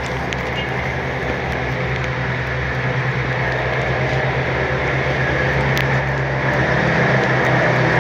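An engine runs steadily with a low hum under a broad mechanical drone, growing gradually louder.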